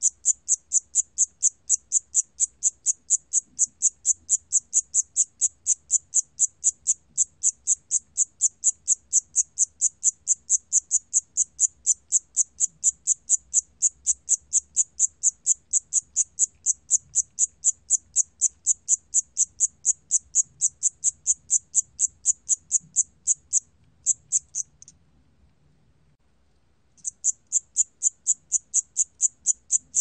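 Siam cricket at 28 °C chirping: a steady train of short, high-pitched chirps, about three to four a second, that stops for about two seconds near the end and then starts again.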